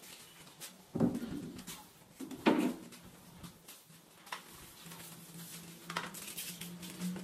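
Interior door slab knocking as it is set into its frame and shifted by hand: two loud knocks about a second and a half apart, then a few lighter taps. A faint low hum starts about five seconds in.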